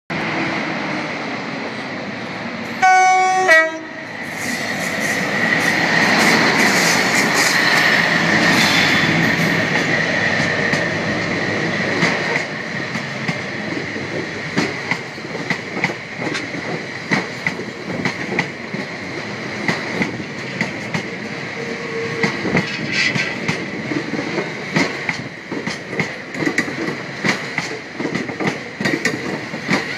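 Class 60 diesel locomotive giving a short two-tone horn blast about three seconds in, then passing close by with its engine running and a steady high whine. A long string of freight wagons follows, its wheels clicking over the rail joints in a quick rhythm.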